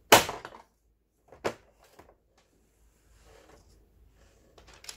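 Sharp knocks and a short clatter of a plastic-bodied Singer 7285 sewing machine being handled and set on its side on a workbench: the loudest knock right at the start, another about a second and a half in, then light rustling and a few small clicks.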